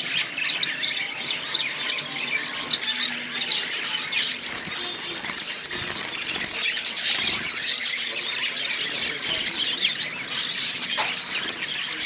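A flock of caged Java sparrows chirping and calling over one another in a dense, continuous chatter of short high notes.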